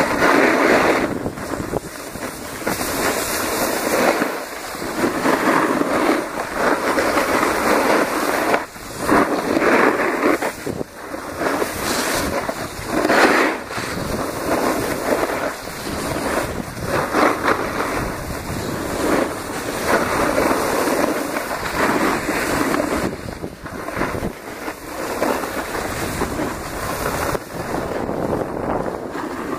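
Snow-sport edges carving and scraping over packed snow, a rushing hiss that swells and fades every second or two as the turns go, with wind buffeting the microphone.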